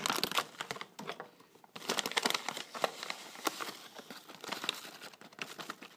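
Plastic Nesquik cocoa powder bag crinkling as it is handled and worked open at the top, with a short lull after about a second.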